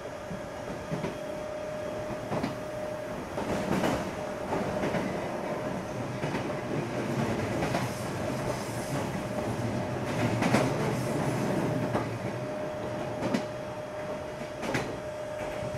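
Running sound of an Odakyu 8000 series car with field-chopper control, its wheels clacking over the joints of jointed rail at speed. A steady hum drops out about three seconds in and returns near the end, and the rumble grows heavier in the middle.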